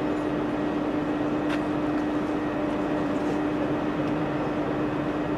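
Steady drone of a train running at a railway station, with a constant hum and one short click about a second and a half in.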